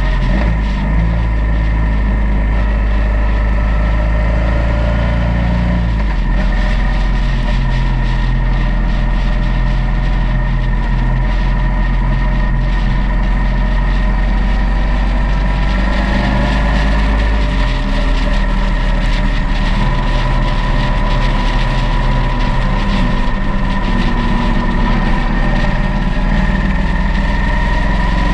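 Motorcycle engine running at a steady cruising speed while riding, with wind and road noise over it. The engine note changes about six seconds in and again around sixteen to eighteen seconds in.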